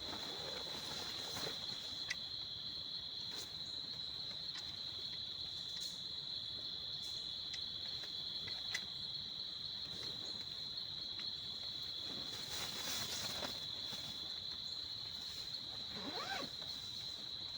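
A steady, high-pitched insect chorus, one unbroken trill, with a few scattered small clicks and brief rustles.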